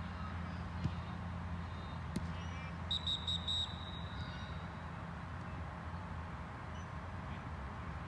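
A steady low hum, with four quick, high electronic beeps in a row about three seconds in.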